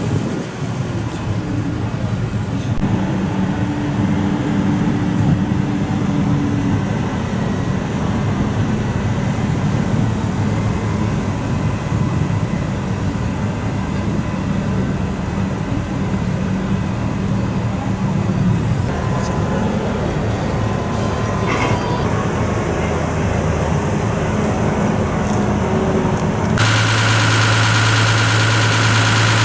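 Isuzu TW bonnet truck's engine running steadily, changing abruptly near the end to a louder, even idle.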